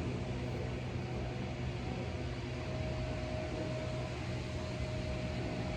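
Steady background hum and hiss of room noise. A faint steady tone joins about two and a half seconds in.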